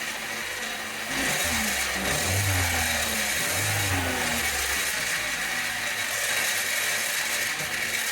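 2014 Chevy Cruze's 1.4-litre turbocharged four-cylinder running, revved up twice, about two and four seconds in, over a steady high hissing noise from the failing turbocharger, whose compressor wheel is not spinning properly.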